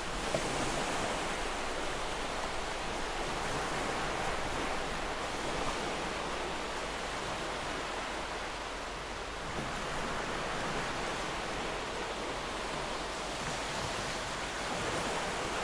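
Gentle ocean waves washing onto the shore: a steady surf wash that swells and eases slowly, a little louder about ten seconds in.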